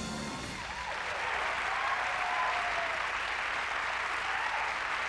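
Studio audience applauding, with a few whoops over the clapping. The clapping swells about a second in and then holds steady.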